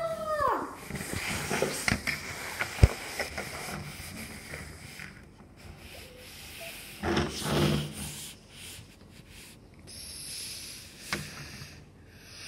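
Plastic Lego train cars rolling and rubbing along a wooden tabletop as they are pushed by hand, with scattered sharp clicks and knocks of plastic bricks, the loudest about three seconds in. A short pitched sound rises and falls at the very start.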